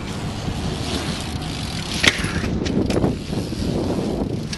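BMX bike being ridden: a steady low rumble of rolling tyres, with one sharp clack about two seconds in and a couple of lighter knocks just after.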